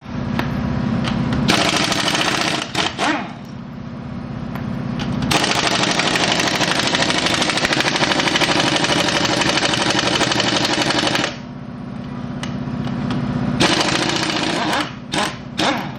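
Impact wrench hammering in three bursts: a short one, a long run of about six seconds, then another short one. This is the sound of bolts being run off while the rear axle assembly is taken down. A steady low hum runs underneath throughout.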